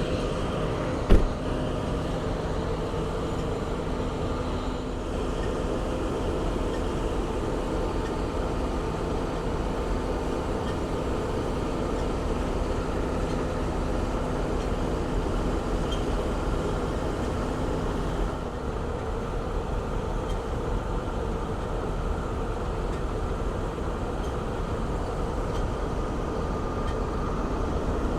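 Steady drone of a farm vehicle's engine heard from inside its closed cab. A single sharp thump about a second in, the cab door shutting. About two-thirds of the way through the engine note changes and its low hum drops away.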